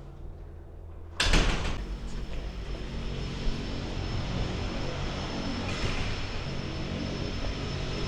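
A door opens with a loud clunk about a second in. The quiet gives way to the steady noise of a helicopter turbine engine running nearby, with a thin high whine over it.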